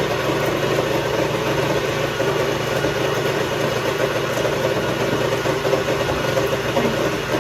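Electric mixer running steadily on low speed, beating eggs: an even motor hum with the whirr of the beaters.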